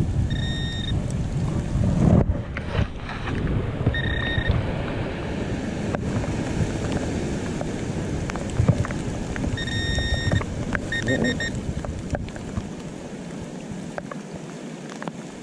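Handheld metal-detecting pinpointer beeping in short, even tones as it is held to dug soil: a beep at the start, another about 4 s in, a longer one about 10 s in, then three quick beeps, the sign that it is closing in on metal in the clump. Wind rumbles on the microphone throughout, with rustling of gloves and soil, and the wind eases near the end.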